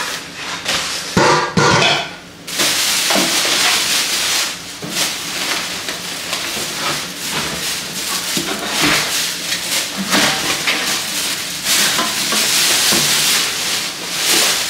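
Aluminium cooking pots knocking and clinking for the first couple of seconds, then thin plastic wrapping crinkling and rustling steadily as a pot is pulled out of its bag.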